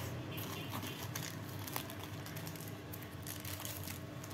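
Faint crinkling of a clear plastic bag and light clicks of small plastic parts being handled: the adaptor rings and a bagged rubber seal ring from a bi-LED projector kit, over a steady low hum.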